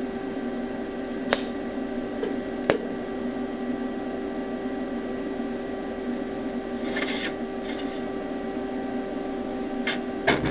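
TIG welder humming steadily while tacking a thin mild-steel lap joint. Two sharp clicks come in the first few seconds, then brief hissing bursts about seven seconds in and twice near the end as quick tack welds are struck.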